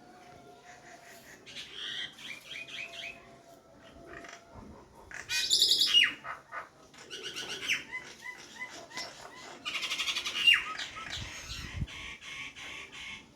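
A bird calling in repeated bursts of rapid chirps and chattering notes, loudest about five to six seconds in and again around ten seconds.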